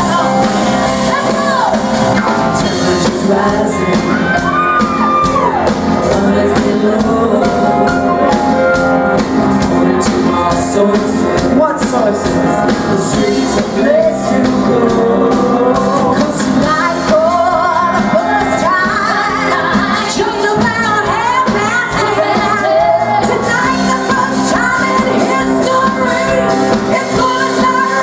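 Live pop band playing a cover with a lead vocal singing over the full band, with shouts mixed in.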